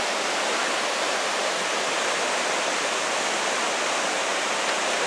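Steady rush of the Johnston Canyon's Lower Falls and the river below.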